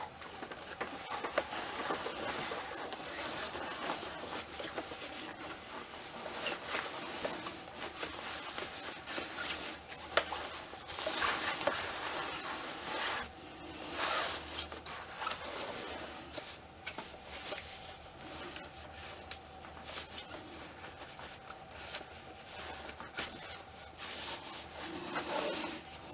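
Cloth rustling and rubbing as fabric trousers are pulled up a doll's legs, with small taps and clicks as the doll is handled, over a faint steady hum.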